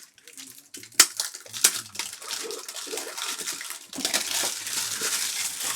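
Trading card packs being torn open and handled: a couple of sharp snaps about a second in, then continuous crinkling and rustling of foil wrappers and cards.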